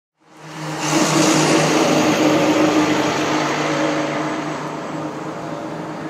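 Road traffic: a motor vehicle passing, a steady engine hum under a wide rush of tyre and road noise. It fades in at the start and slowly dies away.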